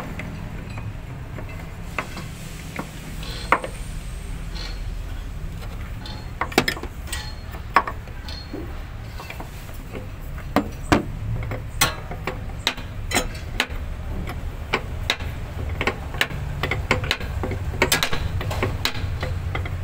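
A steel open-end wrench clicking and clinking on a bolt as it is turned and repositioned in short strokes, making a string of irregular sharp metallic clicks. A low steady rumble runs underneath.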